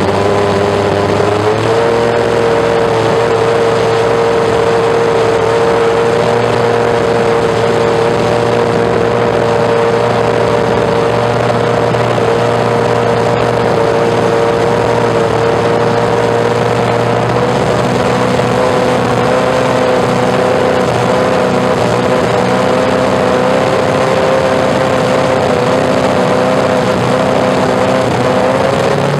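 Benetton B193 Formula One car's 3.5-litre Ford HB V8 running at steady raised revs while stationary. The revs step up about a second and a half in, then hold almost level, creeping slightly higher near the end.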